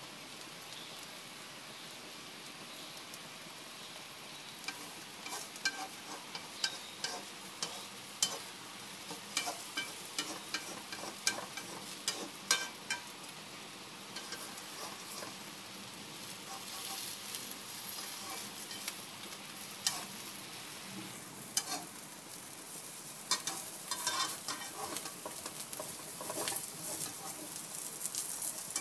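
Egg frying in oil in an F4 Blue Diamond non-stick pan, a steady sizzle. From about five seconds in there are frequent sharp clicks and scrapes as a spatula works the egg against the pan, and the sizzle grows louder about halfway through.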